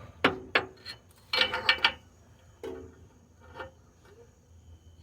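Metal hand tools clinking and rattling: three sharp clicks, then a short ringing rattle about a second and a half in and a couple of softer clinks, from a socket and ratchet handled while fitting a rear oxygen sensor.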